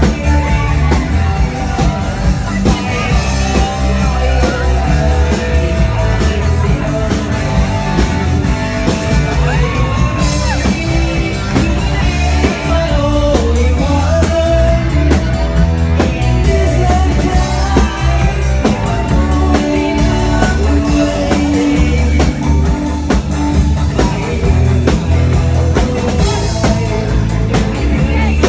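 A live band playing loud amplified music, with a singer's voice carrying the melody over steady bass and drums.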